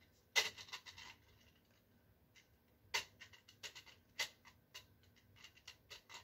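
Light plastic clicks and scrapes of a 3D-printed telescope mirror cell and its screws knocking against the lower tube assembly as the last screw is worked into its hole. A quick run of clicks comes about half a second in, then scattered single clicks.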